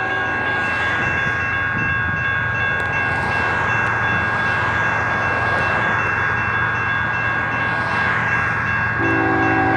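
Level-crossing warning bell ringing steadily at a fixed pitch while a BNSF locomotive horn sounds a short chord right at the start and again about nine seconds in, as the train approaches the crossing.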